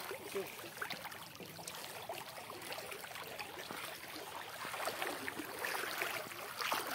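Floodwater sloshing and trickling around the legs of people wading through it, with scattered small splashes.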